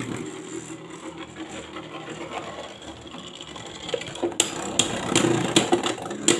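Two Beyblade Burst spinning tops whirring steadily as they spin on the clear plastic stadium floor. Several sharp clacks come in the last two seconds as the tops strike each other.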